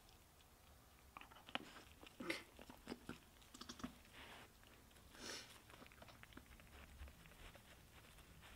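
Nigerian Dwarf doe licking her newborn kid clean: faint, irregular wet licking and smacking mouth sounds, busiest between about one and six seconds in.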